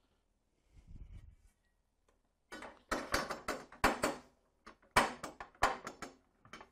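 Bandsaw rip fence being fitted onto its rail bracket on the saw table: a dull bump about a second in, then a quick series of metal clacks and scrapes as the fence is set down and slid.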